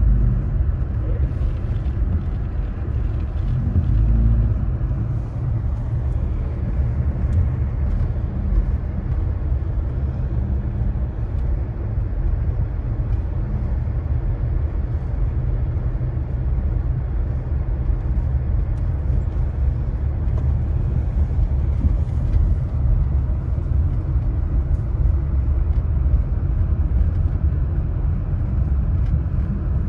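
Steady low road and engine noise of a car being driven, heard from inside the cabin.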